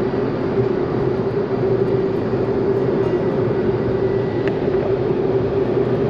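Car driving along a road, heard from inside the cabin: a steady drone of engine and tyre noise with a constant hum.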